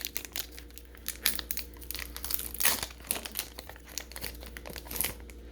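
Foil Pokémon booster pack being torn open and handled, crinkling with many irregular crackles and rustles.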